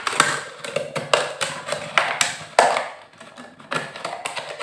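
Thin plastic drink bottle crackling and clicking as it is gripped and worked by hand: irregular sharp cracks, several a second, thinning out after about three seconds.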